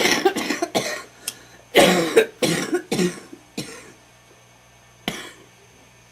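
A person's wet smoker's cough: a fit of harsh, loud coughs in two quick clusters, then one last cough about five seconds in.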